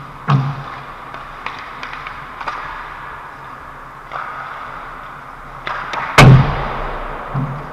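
Ice hockey play at close range: several sharp knocks and thuds of puck and sticks, the loudest about six seconds in and echoing through the rink, over a steady hiss of skates on the ice.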